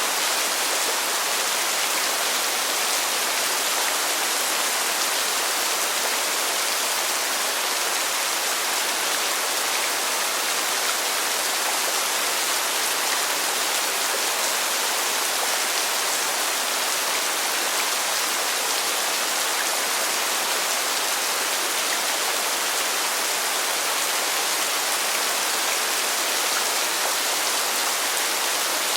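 Heavy pouring rain: a steady, even hiss of dense rainfall.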